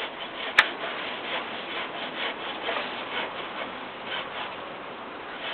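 Hand saw cutting through wood in repeated rasping strokes, about two a second, with one sharp click about half a second in.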